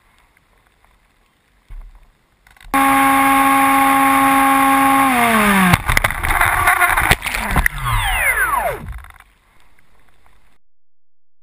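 The Bixler RC plane's brushless electric motor whines at a steady pitch from about three seconds in, then winds down with a falling pitch around five seconds. A stretch of rough noise follows, with a second falling whine near the end.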